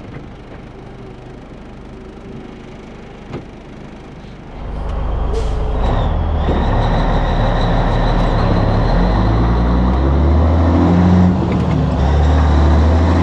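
Cabover semi-truck's diesel engine idling low, then, about four and a half seconds in, much louder as the truck pulls away, the engine note climbing and dropping several times as it works through the gears.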